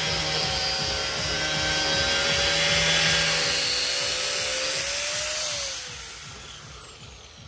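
DeWalt angle grinder with a thin cut-off wheel cutting through the plastic front bumper cover of a Subaru Crosstrek, a steady high whine. About five and a half seconds in it is released and the wheel spins down, its pitch falling as it fades.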